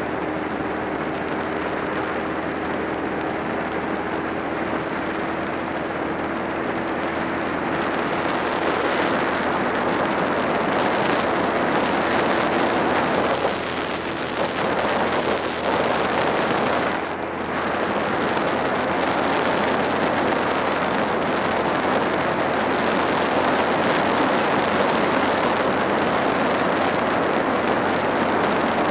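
Suzuki SV650 V-twin motorcycle underway: engine running beneath a steady rush of wind on the microphone. The noise grows louder about eight seconds in and briefly drops twice around the middle.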